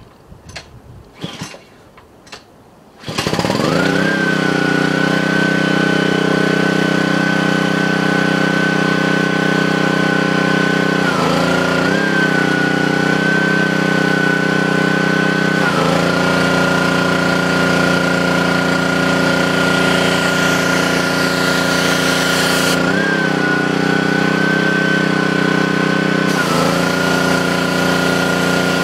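A pressure washer's engine starts about three seconds in, after a few short knocks, and then runs steadily, its pitch shifting briefly four times.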